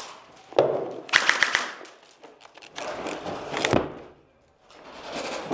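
Airsoft guns firing, a quick cluster of sharp pops about a second in and a single pop near the middle, amid rustling movement.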